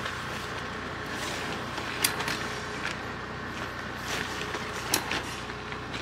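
Handling noises from a dome tent being pitched: a few sharp clicks and knocks of its poles and frame, with rustling of the tent fabric, over a steady background hum.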